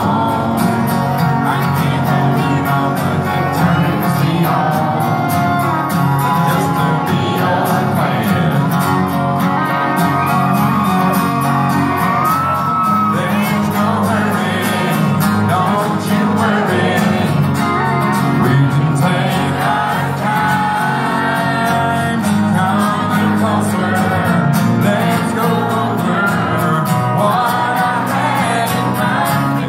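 Live country band playing a song, with a deep male voice singing the lead over guitars.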